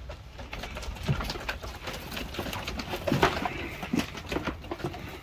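Young Boer goats' hooves clattering and knocking on a slatted wooden pen floor as they shuffle and move, loudest about three seconds in, with birds cooing in the background.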